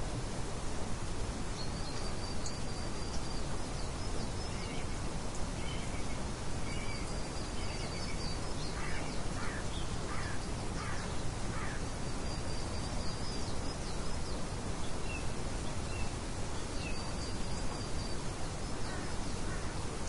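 Steady rain hiss with birds calling over it: a short high trill recurs about every five seconds, and a few harsher calls come around the middle.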